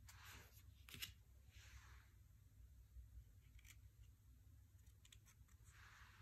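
Faint sounds of tarot cards being handled: three soft swishes of cards sliding against each other, with a few light clicks of card edges between them.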